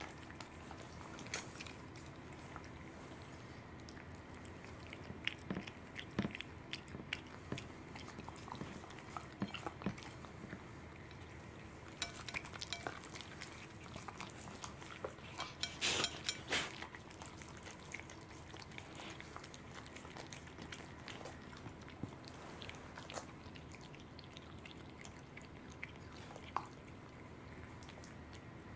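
Cat chewing and lapping raw salmon: irregular wet clicks and smacks, busiest around the middle, over a faint steady hum.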